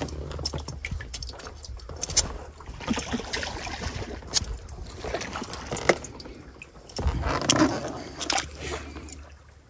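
Live crayfish being released into lake water: an irregular run of small splashes and plops, with water sloshing.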